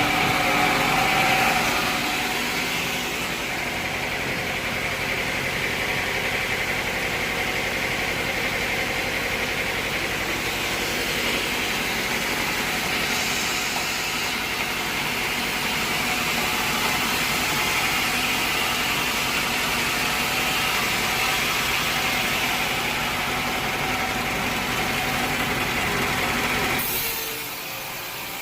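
Sawmill machinery running steadily, an even mechanical noise that drops away abruptly near the end.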